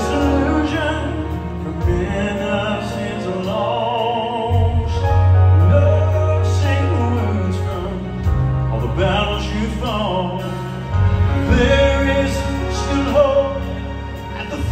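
Southern gospel male quartet performing live: a male lead voice sings with a marked vibrato over an instrumental accompaniment with a steady bass line.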